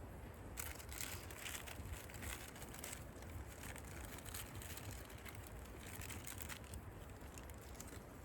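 Faint, irregular crinkling and rustling over a low, steady rumble, with the crinkling starting about half a second in and dying away near the end.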